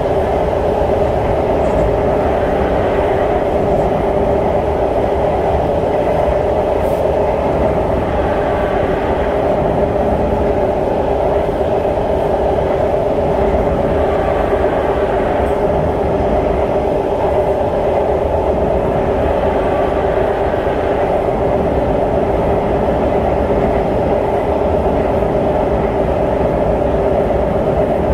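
Inside an SMRT C151 metro train car running at a steady speed: a constant rumble of the wheels on the rails with a steady hum, unchanging throughout.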